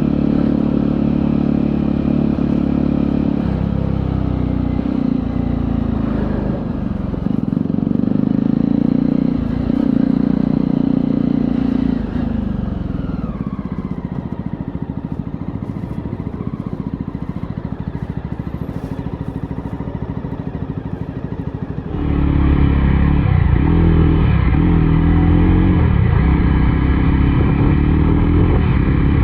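Jawa 42 single-cylinder motorcycle engine and exhaust heard from onboard while riding, its pitch rising and falling with the throttle. It settles quieter about twelve seconds in, then turns suddenly louder about ten seconds later and stays that way.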